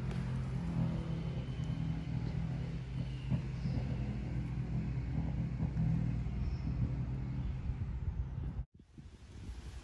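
A steady low engine rumble with a hum, cutting off abruptly near the end.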